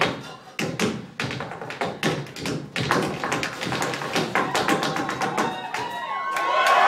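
Tap shoes striking a stage floor in quick rhythmic patterns over Latin-style music, with the taps coming faster and denser from about three seconds in. Audience cheering starts to rise near the end.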